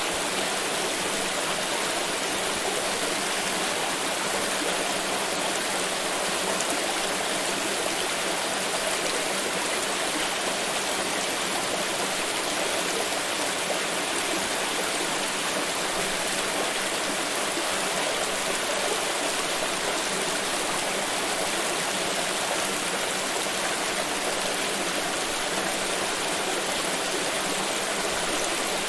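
A forest river flowing, a steady rushing of water over rocks.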